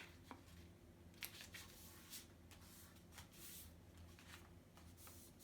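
Faint rustling and crinkling of a sheet of A4 paper being folded and creased into a paper aeroplane's wing, in several short, irregular scrapes.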